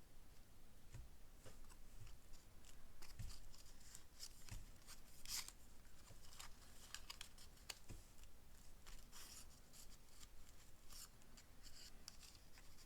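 Faint, irregular crisp rustles and small clicks of paper pieces being handled and laid down, with a few soft thumps on the desk.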